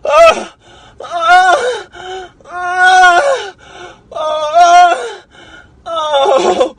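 A voice crying out five times in long, held cries, each dropping in pitch at its end.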